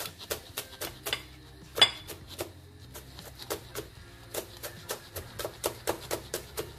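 Chef's knife chopping a red chilli on a plastic cutting board: a quick, uneven run of sharp knocks, about three to four a second, thinning out in the middle, with one louder knock about two seconds in.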